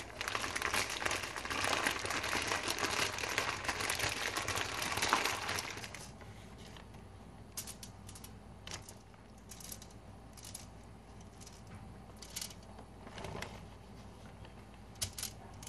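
A sealed zip-top plastic bag holding oiled, seasoned chicken wings shaken hard for about six seconds: a dense plastic crinkling and rustling. Then quieter scattered taps and crinkles as the wings are laid on a foil-lined sheet pan.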